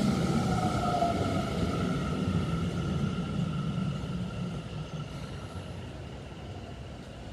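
Tokyo Metro 10000 series electric train running past on the rails: a low wheel rumble with a thin steady whine above it, dying away as the last car goes by.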